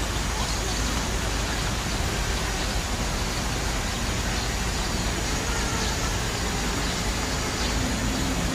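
Steady, even outdoor background noise, a constant hiss and hum with no distinct events.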